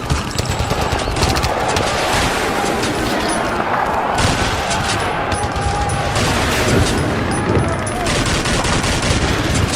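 Battle sound effect of sustained small-arms fire: a dense, continuous mix of rifle shots and machine-gun bursts.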